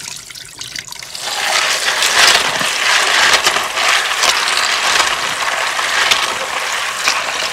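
Kitchen tap running into a plastic bowl of soaked red kidney beans while a gloved hand stirs them to rinse them: steady splashing and churning of water that gets louder about a second in.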